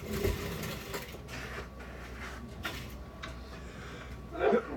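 Plastic cupping cups being handled and suction-pumped on a bare back: a short hiss of air at the start, then a few irregular light clicks. A brief voice sound comes near the end.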